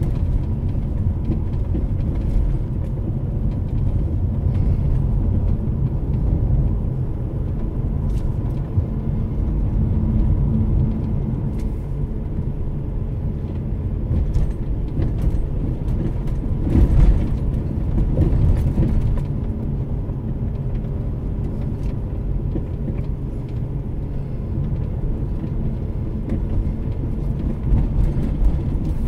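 Car interior noise while driving: a steady low engine and tyre rumble, with a louder knock about 17 seconds in.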